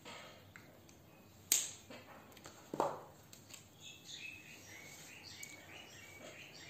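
Writing with a pen: a sharp click about a second and a half in, another click a little before three seconds, then faint scratching strokes.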